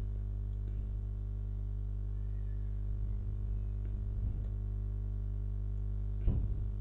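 Steady low electrical hum with its overtones, with no speech over it. A brief voice-like sound comes about six seconds in.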